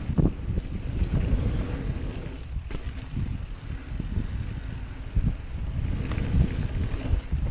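Mountain bike ride down a rough dirt trail: wind buffeting the microphone over a steady low rumble, with scattered knocks and rattles.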